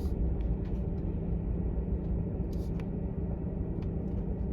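Car driving along, heard from inside the cabin: a steady low road and engine rumble with a few faint ticks.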